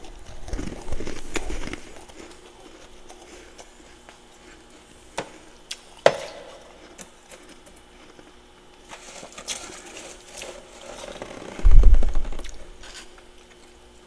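Crunching of powdery freezer frost being chewed in the first couple of seconds, then a sharp click about six seconds in. From about nine seconds a hand scrapes and crumbles packed frost off a freezer wall, with a heavy thump near the end.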